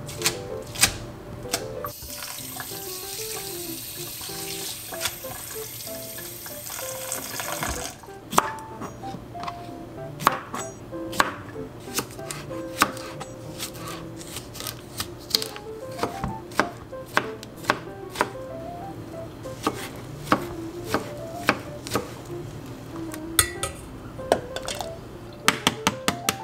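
Large kitchen knife slicing cucumber on a cutting board: a long run of sharp, irregular knocks, one to a few a second, through the second half. Before that, for several seconds, steady hiss of running water.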